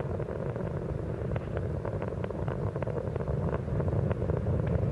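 Space Shuttle launch roar during ascent: a deep, steady rumble with constant crackling from the solid rocket boosters and main engines, the main engines throttled back through the sound barrier.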